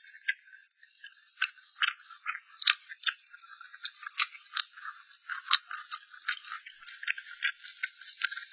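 Close-miked chewing: irregular crisp crunches and clicks of food being bitten and chewed, a few a second.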